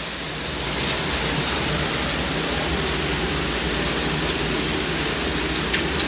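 Conveyor dishwasher running, its wash jets spraying hot water inside the tunnel onto a dish rack: a steady rushing hiss.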